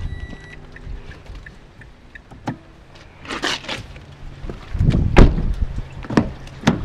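A car's steady warning chime cuts off about half a second in, followed by clicks and handling sounds of a 2010 Mazda 5's door. About five seconds in, a car door thuds shut, the loudest sound.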